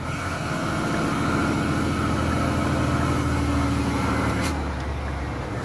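Scania truck's diesel engine with a straight-through exhaust, running steadily under way, heard from inside the cab. A single sharp click comes about four and a half seconds in.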